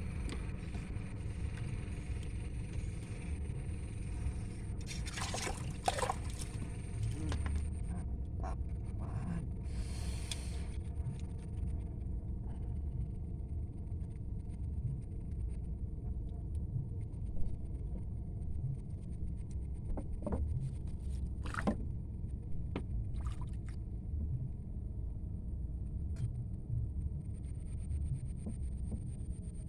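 Low steady rumble of wind and water, with a few short scrapes and knocks, the loudest about 6 s and 22 s in, over a faint steady high whine.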